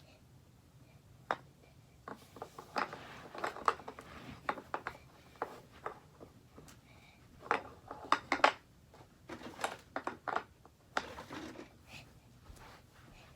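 Toy puzzle pieces clicking and knocking irregularly as they are handled and fitted into a puzzle board.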